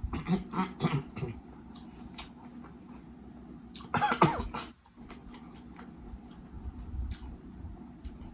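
Close-up eating sounds: chewing and wet mouth noises with scattered small clicks, and a louder burst of mouth noise about four seconds in.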